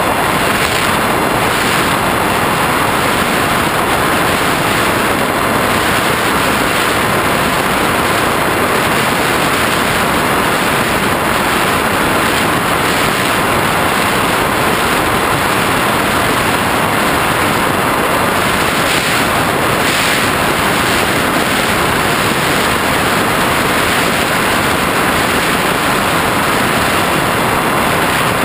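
Steady loud rush of airflow over the onboard GoPro's microphone as an FPV flying wing cruises, with the wing's motor and propeller running under it as a faint steady whine.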